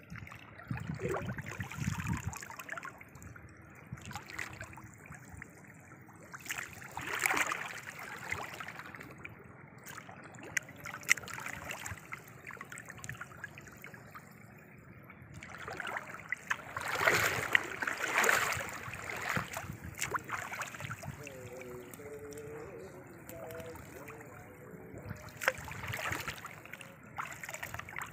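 Water splashing and trickling as a gill net with fish in its mesh is hauled up out of shallow water, with a few louder splashes.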